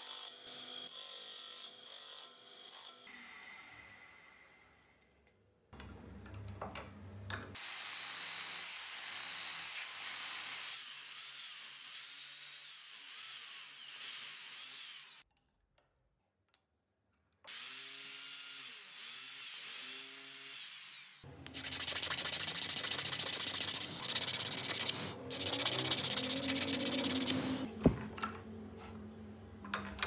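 Walnut knife handle ground against a spinning disc sander, the sound fading out after a few seconds. After breaks, wood is rubbed and scraped by hand as the handle is shaped in a vise, loudest in the last third.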